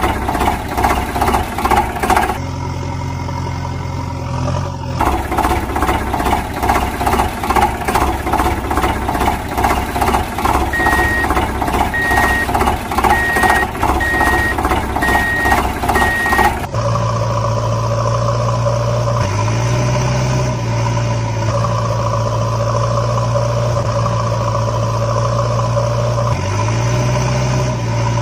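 Engine sound effects for heavy vehicles, laid over the toy vehicles: a rhythmic chugging engine with a steady series of reversing beeps. It then cuts abruptly to a steady idling engine hum that revs up twice.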